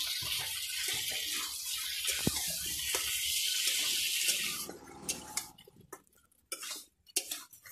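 Chicken and potatoes sizzling in hot oil in a metal kadai as they are stirred and fried down with spices, a steady hiss that stops suddenly about four and a half seconds in. A few scrapes and knocks of the spatula against the pan follow.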